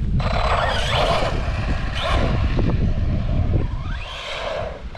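Wind buffeting the microphone in a steady low rumble, with an Arrma Big Rock 3S RC truck's brushless motor and tyres whirring on pavement in bursts. A rising whine comes in just before the second burst, near the end.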